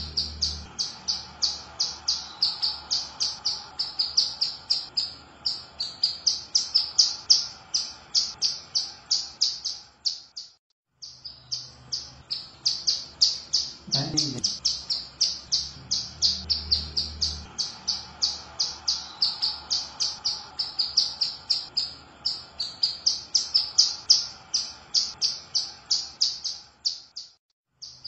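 Female ciblek gunung (prinia) calling: a fast, even string of short, high chirps at about four a second. The string breaks off briefly about ten seconds in and again near the end. A brief low sound comes about halfway through.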